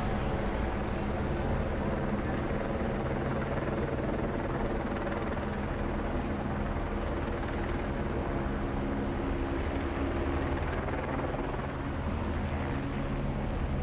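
Steady low engine drone over city street noise, holding an even pitch throughout.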